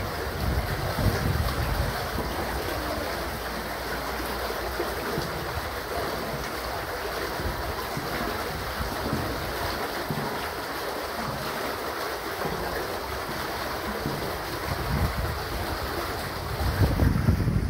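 Wastewater gushing out of a pipe into a sewer manhole in a steady rush, flowing freely now that the blockage has been cleared by high-pressure jetting. A low rumble swells near the end.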